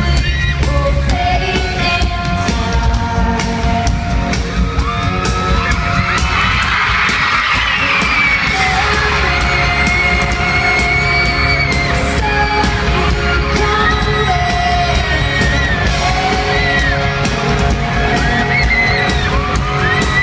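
Live pop concert music heard from the audience: an amplified band with a singer, and the crowd yelling and singing along, loudest a few seconds into the song.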